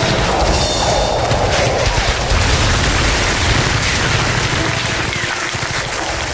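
Battle sound effects: dense gunfire and explosions with a heavy rumble, and the falling whistle of an incoming shell a little past halfway.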